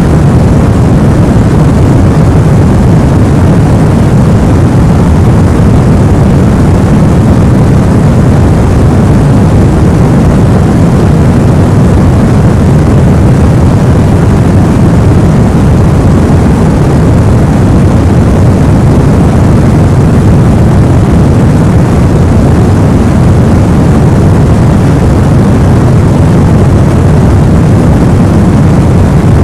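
Steady, even rushing noise with most of its weight in the low end and no change or break: sleep-aid white noise for lulling a baby to sleep.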